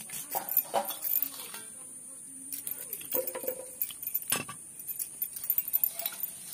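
Light clicks and taps from hands handling garlic, a boti blade and a steel bowl, with one sharp clink about four seconds in. Near the end, roasted dry fish spill out of the tipped steel bowl.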